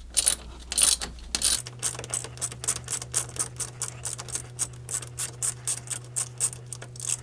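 Hand ratchet with a half-inch socket clicking in quick back-and-forth strokes, about five clicks a second after a few louder clicks at the start, as it unscrews the nut from a snowmobile track stud.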